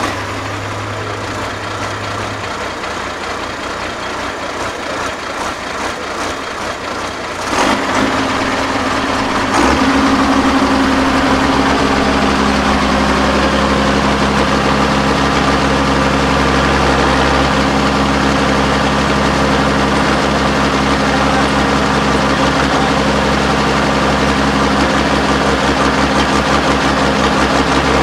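Diesel engine of a 6x6 Mercedes-Benz trial truck working under load as the truck crawls up a rock step. It runs steadily, grows louder in two steps about eight and ten seconds in, then holds a steady, heavy note at higher revs.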